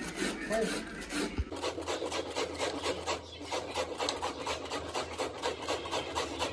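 Whole cabbage rubbed back and forth on a large perforated steel grater, shredding it in rhythmic rasping strokes about three a second.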